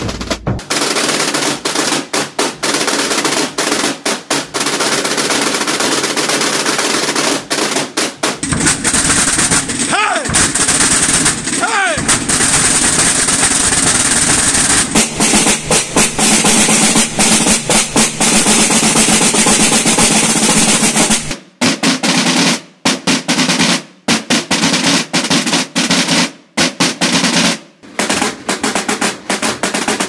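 Aragonese Holy Week drums, tambores (snare drums) with a bombo (bass drum) at first, played in a continuous fast roll. The sound changes abruptly a few times, and in the last part the roll stops and restarts several times.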